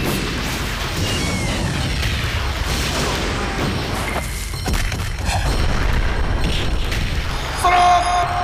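Battle sound effects: heavy booms and crashes over a continuous low rumble, as of earth being smashed and churned. A loud shout rings out near the end.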